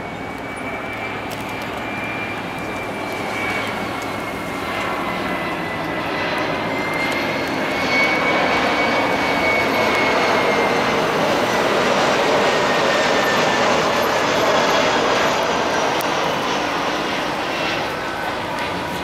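Twin-engine jet airliner on landing approach, passing low overhead. Its engine noise grows louder over the first several seconds and then holds, with a high fan whine that drops slightly in pitch as it goes by.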